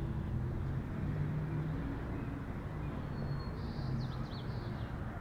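Steady low hum of a vehicle engine. About three and a half seconds in, a bird gives a few quick high chirps.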